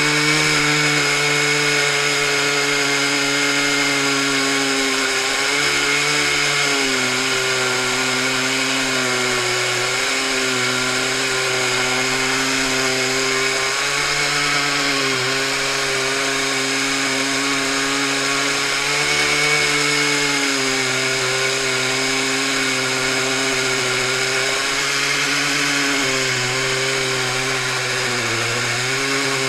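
Two 120cc chainsaws, a Stihl 084 and a Stihl MS 880, run at full throttle at either end of an 87-inch mill bar, ripping a beech log lengthwise. The sound is a loud, steady engine note whose pitch sags briefly every several seconds as the saws load up in the cut.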